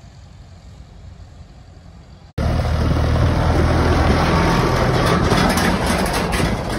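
Faint low rumble of wind, then a sudden cut to a farm tractor's diesel engine running loudly and close as it drives past towing an empty bale trailer, with tyres crunching on gravel and the trailer rattling as it goes by.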